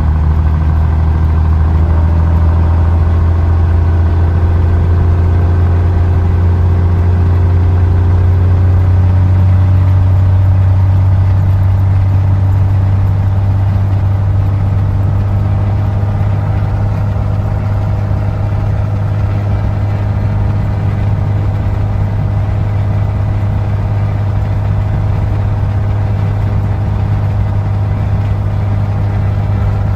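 Piper Lance's six-cylinder Lycoming IO-540 aircraft engine running steadily, its pitch easing slightly over the first several seconds and then holding even.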